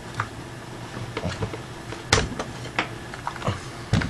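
Scattered light clicks and knocks of airsoft M4 receiver parts being handled and fitted together, the sharpest about two seconds in and again near the end.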